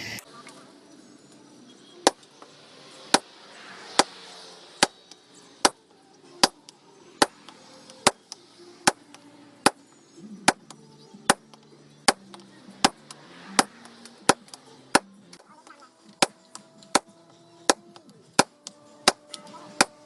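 A long series of sharp knocks, evenly spaced at a little more than one a second, about two dozen strikes in all, like chopping or striking.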